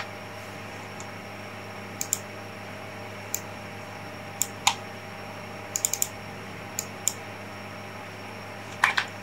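Computer keyboard key presses and mouse clicks: a dozen or so sharp, separate clicks at uneven intervals, some in quick pairs and a small burst about six seconds in, over a steady low electrical hum.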